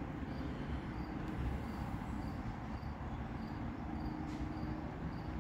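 Faint insect chirping, a short high chirp about twice a second, over a steady low background rumble.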